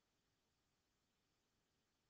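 Silence: an essentially soundless track with only a faint, even noise floor.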